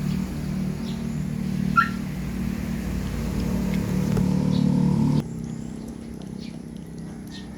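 A steady low motor hum that stops abruptly about five seconds in, over faint scattered clicks of Chihuahua puppies crunching on raw chicken feet, and one short high squeak a couple of seconds in.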